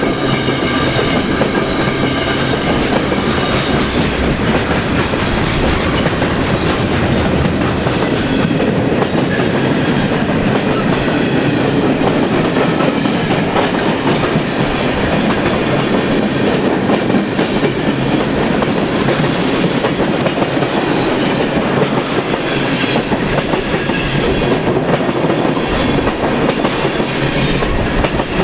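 Canadian National freight train cars rolling past, their steel wheels clattering steadily over the rails.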